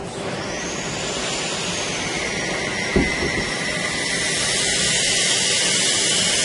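An OCA laminating machine runs with a steady rush of air that grows louder, carrying a high whine that falls a little at first and a fainter steady tone beneath it. There is a single knock about three seconds in.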